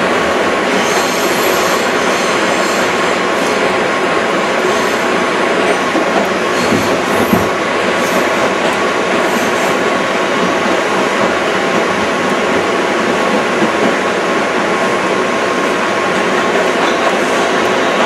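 New York City subway train running, heard from inside the car: a steady loud rumble and rattle of wheels on rail, with thin high wheel squeals now and then in the first half.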